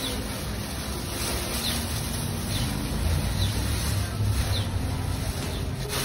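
Gusty wind blowing across the microphone and through a large plastic bag and garden foliage, a steady rushing with low rumbles that swell about halfway through. A bird gives short, high falling chirps roughly once a second.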